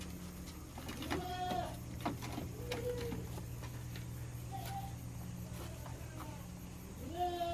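Goats bleating: about four short calls, the first and last the loudest, over a steady low hum.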